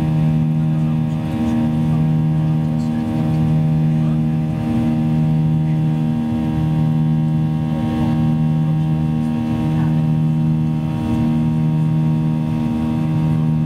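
Jet engines of a Transavia Boeing 737 heard from inside the cabin during the climb after takeoff: a steady low drone of several held tones that swells and fades in a slow beat about every two seconds, the peculiar engine sound the uploader finds odd.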